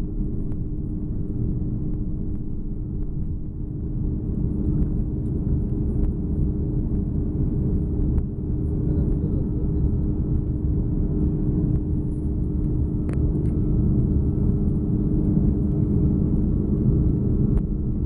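Airbus A330-300 airliner's jet engines: a steady low rumble with a constant hum, growing louder from about four seconds in.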